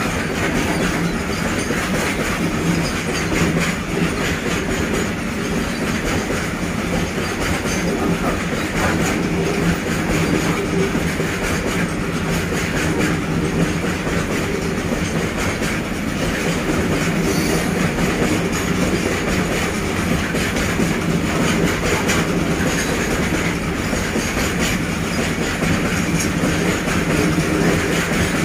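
BCNHL covered freight wagons rolling past close by: a loud, steady rumble of steel wheels on the rails with a continuous clatter over the rail joints.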